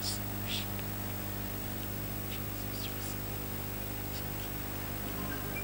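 Steady electrical hum from a microphone and sound system, with faint whispered prayer heard as scattered soft 's' hisses.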